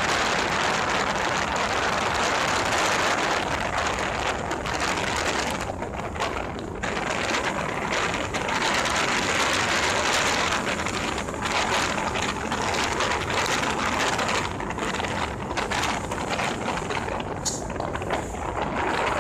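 Wind rushing over the microphone of a moving vehicle, mixed with road and tyre noise: a steady rushing hiss that swells and dips a little.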